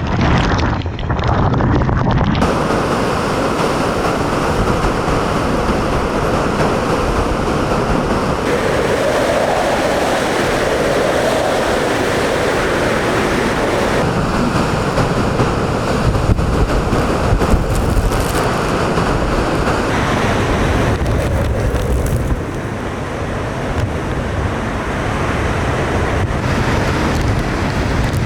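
Typhoon-force wind blowing hard and buffeting the microphone: a loud, continuous rush of wind noise that changes abruptly in tone several times.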